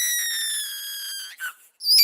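Baby crying: one long, very high wail that sinks slightly in pitch and breaks off about a second and a half in, followed by a short catch of breath and the start of the next wail near the end.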